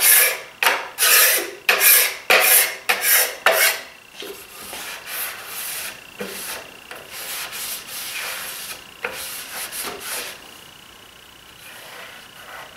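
Hand scraper drawn over dried finish on plywood in quick, even strokes, about three a second, turning to lighter, sparser strokes after about four seconds. It is smoothing drips and humps out of the first coat of finish before the next coat, in place of sanding.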